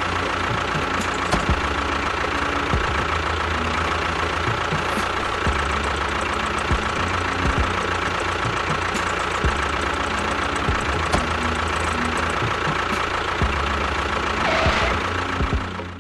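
Engine-like machine noise running steadily, with a constant high whine and scattered knocks over a low rumble, cut off abruptly at the end.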